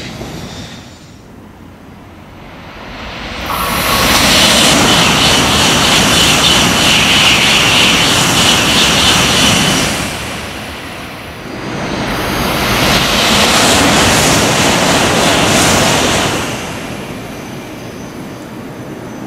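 Shinkansen high-speed trains passing through the station at speed: a loud rush of air and wheel noise builds about three seconds in and lasts about six seconds. After a short lull a second pass of about four seconds follows, then it settles to a quieter steady hum near the end.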